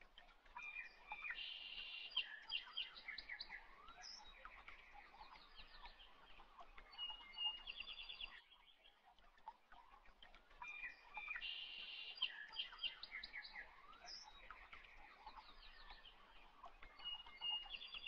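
Faint birdsong of quick chirps and trills, a recorded loop that repeats itself about every ten seconds.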